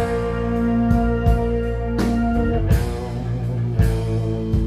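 Live band playing instrumental rock: electric guitar, bass guitar and keyboard with sustained notes, punctuated by sharp drum-like hits.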